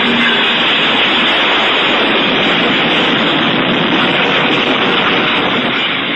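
Loud, steady static hiss that starts to fade near the end.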